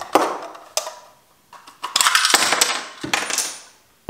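Hard plastic battery housing clicking, knocking and scraping as the cell pack of an 18 V tool battery is worked out of it: a few sharp clacks, with a longer rattling scrape about two seconds in.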